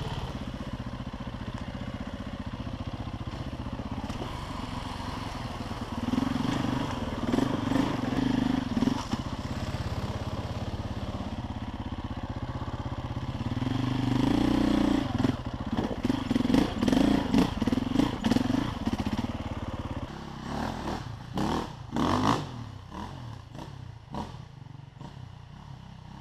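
KTM enduro motorcycle engine running at low speed over rough ground, with the revs picked up harder twice. Near the end it drops back toward idle, with a few sharp clattering knocks.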